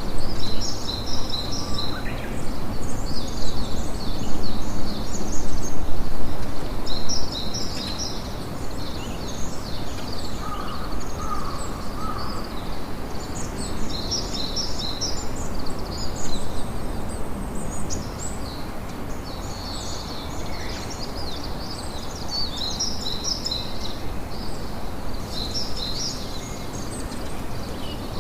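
Sea surf and wind making a steady rushing noise, louder for the first several seconds, with small birds twittering in repeated bursts of quick high chirps. A short lower bird call comes about eleven seconds in.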